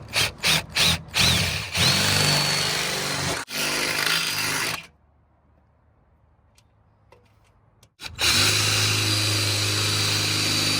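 Power drill run in a few short trigger bursts, then held on for about three seconds with a steady whine, stopping, and after a quiet pause of about three seconds running steadily again: drilling holes for a widebody fender kit's mounting points.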